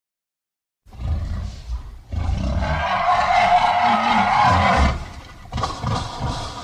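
Monster roar sound effect for SCP-682, a giant reptilian creature: a deep growl about a second in, then a long, loud roar lasting about three seconds, and another short growl near the end.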